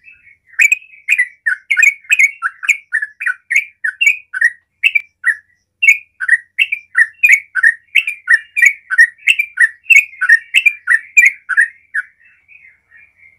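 Yellow-vented bulbul singing a long unbroken run of quick bubbly notes, about three a second, alternating higher and lower. The run stops about twelve seconds in, with a few faint notes after.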